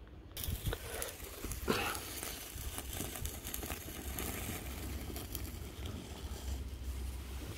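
Hand-held sparkler fizzing and crackling as it burns against a nylon jacket, with one louder crack about a second and a half in. Low wind rumble on the microphone runs underneath.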